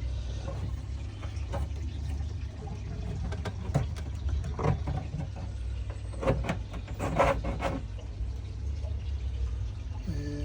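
Short knocks and rattles of a drum filter's mesh screen and housing being handled and fitted, over a steady low hum.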